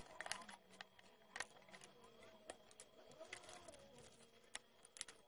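Faint, irregular small clicks and light scraping of a thin metal pick against the plastic and diecast metal parts of a scale model car being pried apart.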